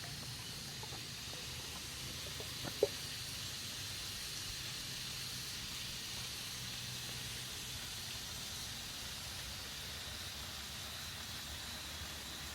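Steady high-pitched hiss of outdoor ambience, with a single short sharp tap just under three seconds in.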